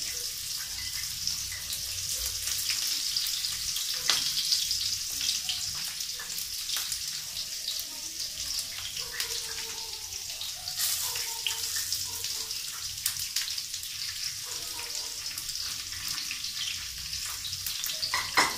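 Masala-stuffed okra shallow-frying in hot oil in a pan, a steady sizzle, with a few sharp clicks of utensils or pan knocks.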